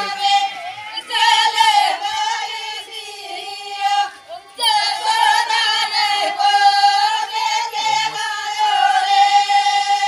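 A group of women singing together in high voices, with a brief break about four seconds in.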